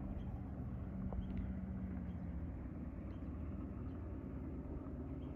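Motorboat engine running at a steady drone, over a low rumble of wind on the microphone.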